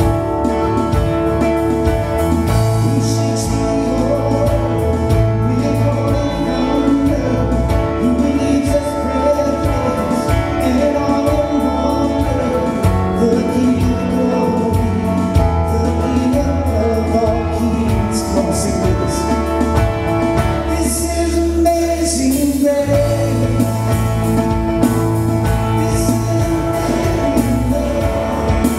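Live worship band playing a song, with acoustic and electric guitars, bass guitar and drums under a man singing lead. The bass and drums drop out for a moment about two thirds of the way through, then come back in.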